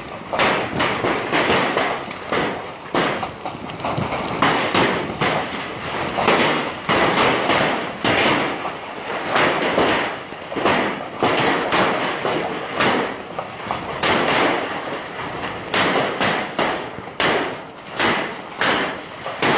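Heavy hailstorm: a dense clatter of hailstones striking, over a steady rushing roar that swells and eases in gusts.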